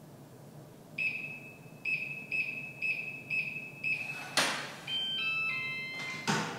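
Digital keypad door lock being opened: a longer beep, then five short beeps as the code is keyed in. A loud clack follows as the lock releases, then a short melody of stepped, mostly falling tones signalling that it is unlocked. A second clack comes near the end as the door is opened.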